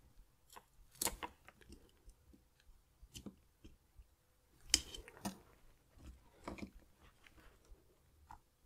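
Metal tweezers prying and scraping at a coin-shaped vibration motor stuck down inside a smartwatch case: faint, scattered small clicks and scrapes, with sharper clicks about a second in and again near the five-second mark.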